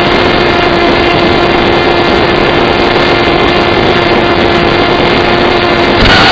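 Small RC flying wing's motor running at a steady pitch under loud, constant wind rush. There is a brief louder gust of noise near the end.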